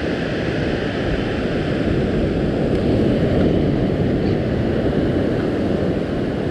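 Surf washing onto a sand beach, mixed with wind rumbling on the microphone: a steady, loud, dull rush that swells a little in the middle.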